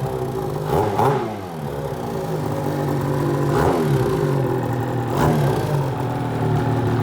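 Snowmobile engine running, with a steady low note and short revs that rise and fall in pitch about a second, three and a half and five seconds in.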